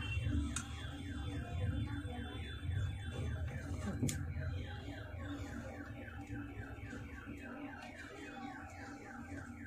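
An electronic alarm chirping steadily: rapid, even falling chirps, about four a second, over a low hum, with a single sharp click about four seconds in.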